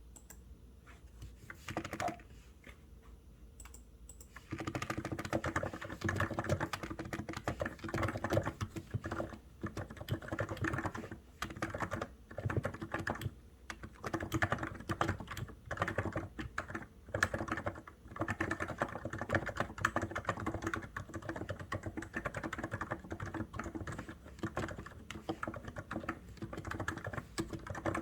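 Typing on a COX Endeavour capacitive (non-contact) keyboard: a few isolated keystrokes, then from about four seconds in a steady run of fast, continuous typing.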